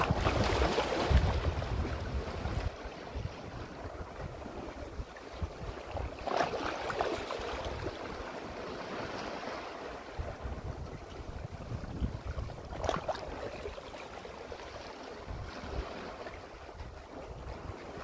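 Sea waves washing in over rocks and splashing between them, loudest at the very start, with further surges about six seconds in and again around thirteen seconds, and a steady wash between.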